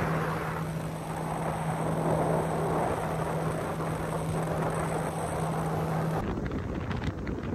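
Yamaha 115 outboard running the boat at speed: a steady engine hum over the rush of water and wind. About six seconds in the hum stops suddenly, leaving wind buffeting on the microphone.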